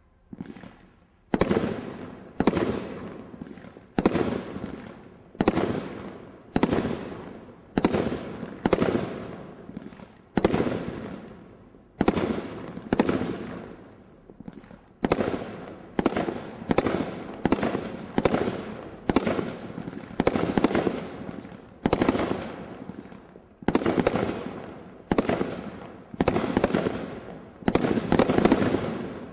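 Brothers Pyrotechnics 'Hercules' combination roman candle barrage firing shot after shot, each a sharp report with a fading tail. The shots come about one a second at first and quicken in the second half.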